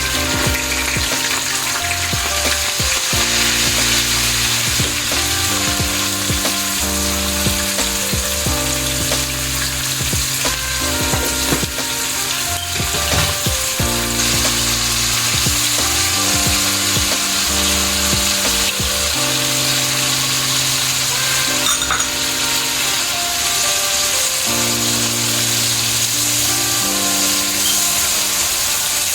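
Food frying in a pan with a steady sizzle, over soft background music of slowly changing held notes.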